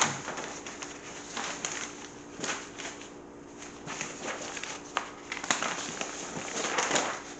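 Large paper plan sheets being leafed through and turned over by hand: irregular rustling and swishing of paper, with several short sharp crackles as sheets flip and settle.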